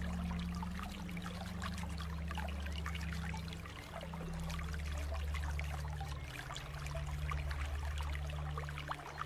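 Shallow stream flowing over rock ledges, a continuous trickling and splashing of water. A low rumble runs underneath.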